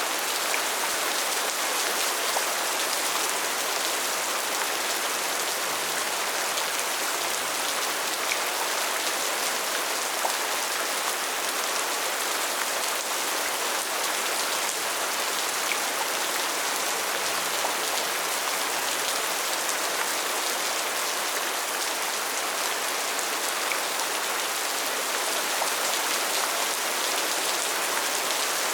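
Steady, even rainfall: a constant hiss with a few faint separate drop ticks here and there.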